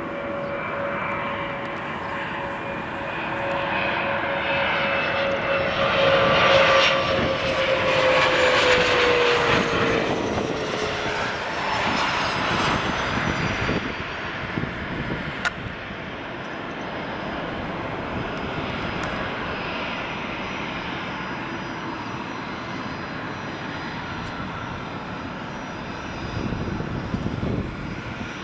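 Bombardier CRJ-200 regional jet with twin rear-mounted General Electric CF34 turbofans passing close on landing approach: a steady engine whine that drops in pitch as the jet goes by, loudest about seven to ten seconds in, then a lower, steadier jet rumble as it rolls out along the runway.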